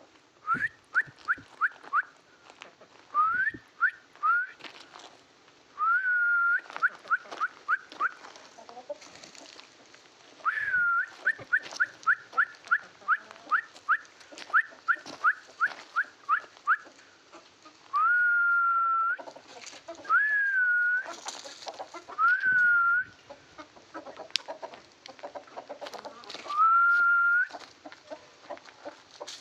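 Chickens calling: runs of quick, clear peeping notes, about four or five a second, mixed with several longer drawn-out notes of about a second each.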